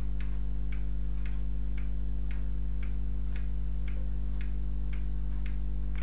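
Even, regular ticking, about two ticks a second, over a constant low electrical hum.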